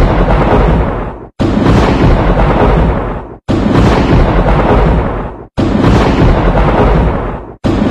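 A loud, deep booming sound effect with a rushing tail, looped: it starts suddenly about every two seconds and fades away before the next one begins.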